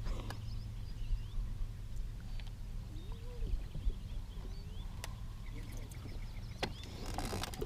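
Faint outdoor ambience over a steady low hum, with scattered bird chirps and calls, one drawn-out arching call about three seconds in, and a couple of sharp clicks.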